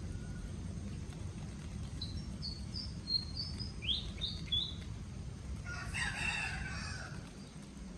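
A small bird chirps a quick run of high notes, then a rooster crows once, briefly, about six seconds in, over a steady low rumble.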